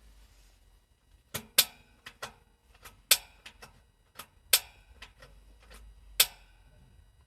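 A run of sharp, irregular clicks and small cracks, about sixteen of them, beginning about a second and a half in, a few noticeably louder than the rest.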